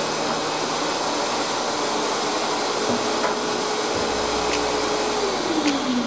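Stanley SXVC50XTDE wet and dry vacuum cleaner running with a steady rushing noise and a hum that drops in pitch near the end.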